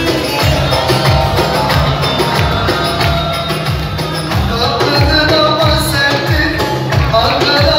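Loud dance music with a steady, heavy drum beat and a melody line over it.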